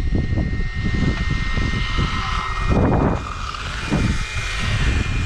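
Arrma Typhon 8S RC buggy's brushless motor and drivetrain whining at speed, swelling into a loud rush as it comes past about three seconds in. Heavy wind rumble on the microphone throughout.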